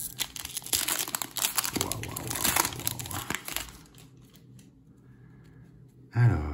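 The foil wrapper of a Panini Illusions trading-card pack is torn open and crinkled for about three and a half seconds, followed by softer handling of the cards. A short burst of voice comes near the end.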